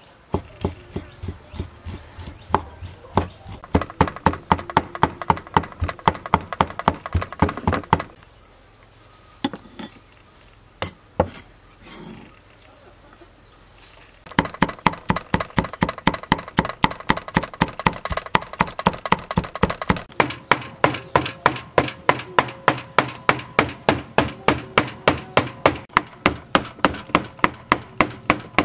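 Cleaver chopping minced pork on a wooden chopping board: quick, steady knocks of the blade on the wood, about four a second, stopping for several seconds in the middle except for a few single knocks, then starting again.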